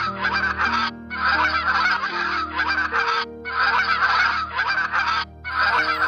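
Domestic goose honking: a run of loud, harsh honks in groups separated by short pauses.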